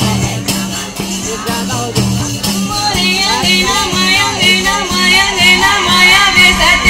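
Live Panthi devotional song (mangal bhajan): singing over jingling percussion and a steady low drone. About three seconds in, a higher wavering melodic line joins and the music grows louder.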